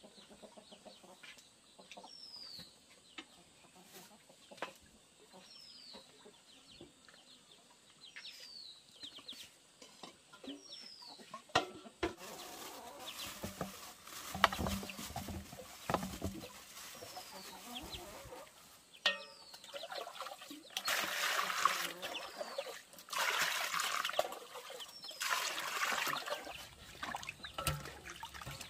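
Chickens clucking, with a high, falling peep repeated about every two seconds. From about halfway in there are scattered knocks and rustling, then three loud rushing noises about two seconds apart near the end.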